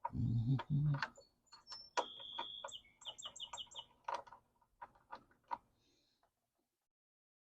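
Small clicks and light knocks of parts and tools being handled, with a short low vocal sound at the start. A bird calls about two seconds in: one held high note, then a quick run of about six chirps.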